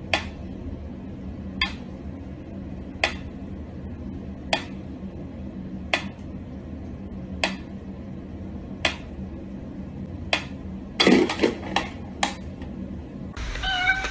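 Mechanical pyramid metronome ticking slowly, one sharp tick about every second and a half. About eleven seconds in, the even beat breaks into a quick flurry of irregular clicks and knocks as the pendulum is disturbed.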